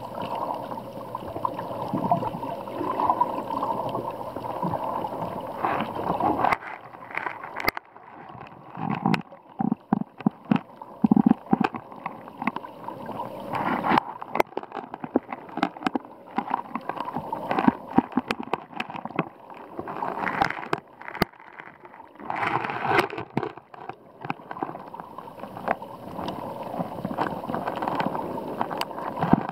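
Sea water sloshing and gurgling around an underwater camera, with many sharp clicks and knocks scattered through it.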